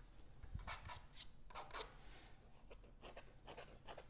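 Faint, quick scraping strokes of a steel painting knife spreading thick oil paint across a stretched canvas, a few strokes each second.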